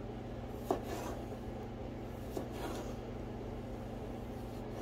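Chef's knife slicing a soft dill pickle lengthwise into spears on a plastic cutting board. Quiet cutting sounds with two light taps of the blade on the board, near the start and about halfway through, over a low steady hum.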